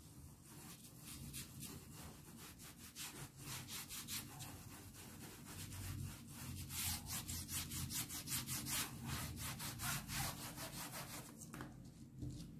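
Paintbrush scrubbing fabric paint into a cotton hand towel in quick back-and-forth strokes, about three to four a second, blending the background coat. The strokes stop shortly before the end.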